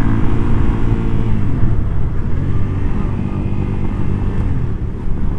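Suzuki SV650S's V-twin engine running under way with wind noise at the helmet; the steady engine note breaks off briefly about one and a half seconds in and again near the end, around gear changes.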